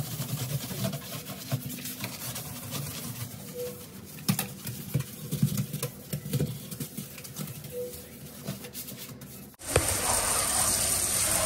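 Stiff plastic bristles of a soap-dispensing dish brush scrubbing a soapy stainless-steel sink drainboard, with a quick, irregular scratching and swishing. Near the end the tap is on and water runs steadily into the steel basin, louder than the scrubbing.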